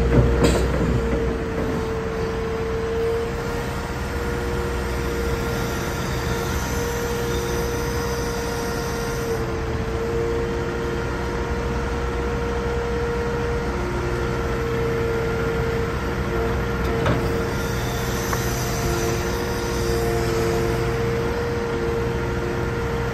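Liebherr R936 crawler excavator running, its diesel engine rumbling steadily under a hydraulic whine that cuts out and comes back as the boom and stick are worked. A sharp knock sounds about half a second in, and a fainter one later on.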